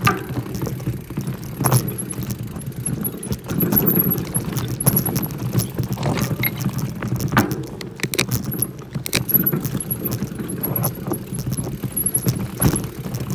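Mountain bike jolting down a rocky forest trail: a steady metallic rattle from the bike with many irregular knocks as the tyres hit rocks and roots.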